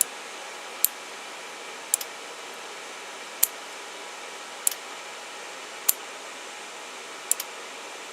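Sharp clicks, seven in all, about one to one and a half seconds apart, from a toggle switch being flicked and the 2-channel relay module switching the LED lights with each flick, over a steady fan hiss.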